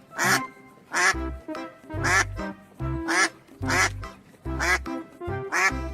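Duck quacking, short calls repeated about once a second, over background music with a beat.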